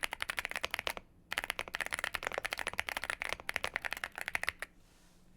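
Fast typing on a Womier SK71 75% mechanical keyboard with CannonKeys Coffee Chip Ice Cream tactile switches: a rapid run of key clacks that pauses briefly about a second in, then more fast typing that stops shortly before the end.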